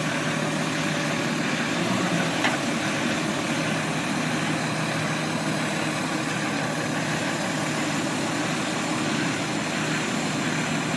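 Diesel engine of a roll-off truck running steadily as its hook-lift hoist pulls a steel dumpster up onto the truck, with a single click about two and a half seconds in.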